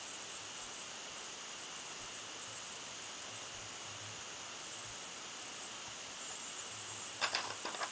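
Steady hiss of background recording noise, with a faint high-pitched steady tone above it.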